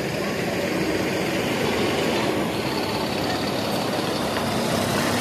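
Mercedes-Benz high-deck coach's diesel engine running steadily as the bus moves slowly past and pulls away.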